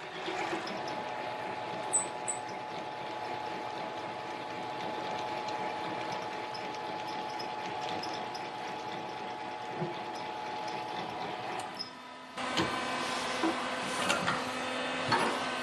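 Harbor Freight mini lathe running with a steady whine and a rhythmic pulsing about five times a second. It stops about 12 seconds in, and a different steady machine hum follows.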